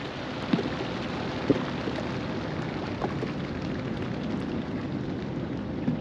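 A large flock of cormorants taking off from the water together: a steady rushing noise, with a few faint knocks.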